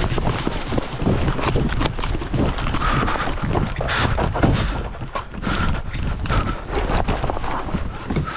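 Running footsteps with gear clattering: irregular quick knocks over a low rumble of wind on the microphone.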